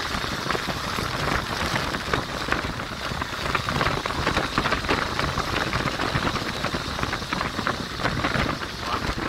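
Wind rushing over the microphone and tyre noise from a moving car: a steady rushing hiss dotted with many small crackles.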